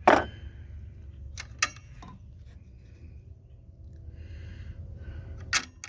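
Handling noise from hand work on a generator: a loud sharp knock at the start, a few light clicks about one and a half to two seconds in, and another loud knock near the end, over a low steady hum.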